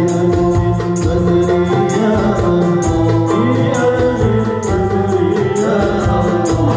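Background music: a song with a singing voice over a steady, regular beat.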